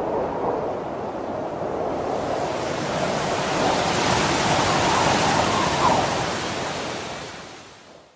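A steady rushing noise, like surf or wind, that fades out near the end.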